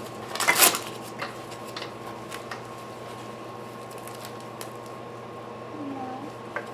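Swing parts and hardware being handled during assembly: a brief rustling clatter about half a second in, then scattered light clicks and taps over a steady electrical hum.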